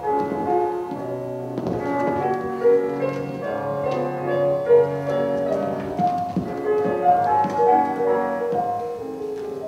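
Piano music playing a melody of sustained notes, with no speech.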